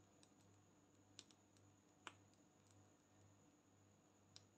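Near silence: faint steady room hum with a few soft, short clicks, the clearest about two seconds in.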